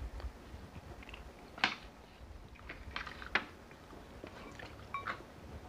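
Close-miked eating sounds: chewing and small mouth smacks from people eating rice and chicken igado by hand, with a few short sharp clicks, the loudest about one and a half and three and a half seconds in.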